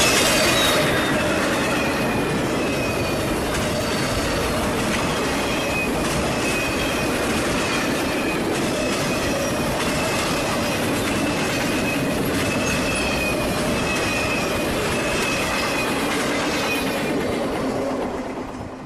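Freight train passing close by: steady rumble and clatter of wheels on the rails, with thin high squealing from the wheels. The sound fades away near the end as the last cars go by.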